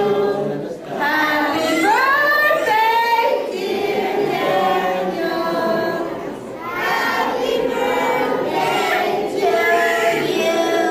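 A group of people, children among them, singing a song together over the noise of a crowded room.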